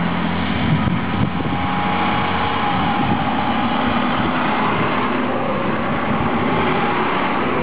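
Diesel engine of an Erfurter Bahn Regio-Shuttle RS1 railcar running steadily at the platform, a constant engine drone with a steady whine over it.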